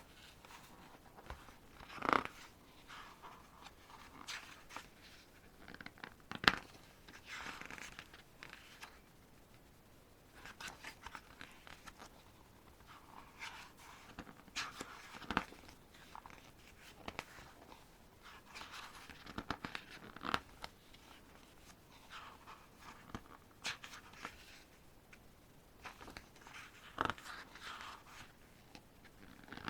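Pages of an album photobook being turned and handled: intermittent paper rustles and swishes, with a few sharp taps, the loudest about two seconds in and about six and a half seconds in.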